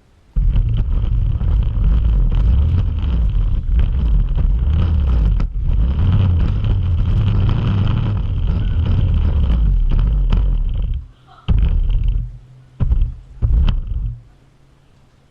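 Radio-controlled car driving, heard from a GoPro riding on it: a steady high motor whine over a heavy low rumble that starts suddenly, runs for about ten seconds, then stops and comes back in three short spurts.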